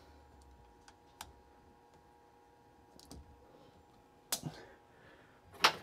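A few small, sharp clicks and taps of a router bit being pushed into the router's collet, the loudest near the end.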